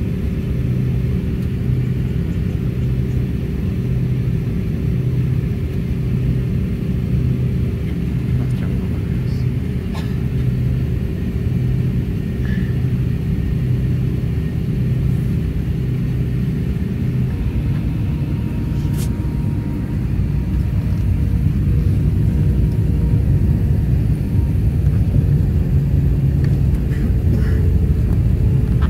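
Airliner cabin noise: the jet engines' steady rumble and a low pulsing hum, growing louder about two-thirds of the way through.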